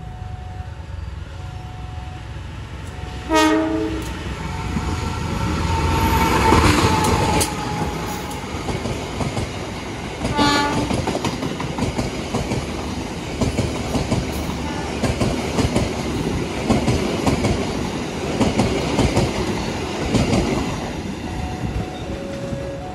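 A local passenger train's diesel locomotive sounds two short horn blasts, about three and ten seconds in, as it approaches. Its coaches then pass close by with a clickety-clack of wheels over the rail joints, fading near the end as the train moves away.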